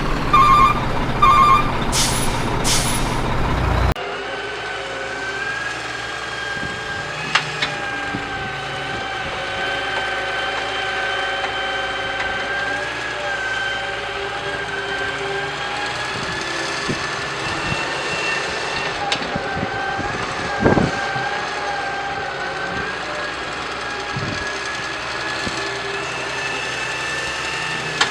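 Miniature RC truck sounds: a run of reversing beeps for the first few seconds with two short hisses like air-brake releases. Then a steady whine with a slight waver in pitch, broken by a few faint clicks.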